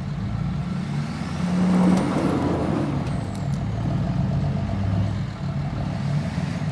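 Diesel pickup engine running under load while pulling a stuck truck, revving up about two seconds in and then holding steady.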